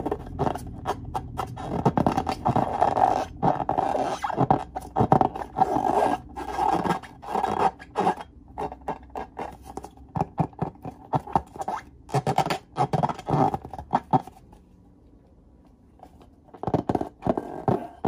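Hands rubbing and squeezing latex balloons: a run of irregular rubbery scraping strokes, pausing for about two seconds near the end.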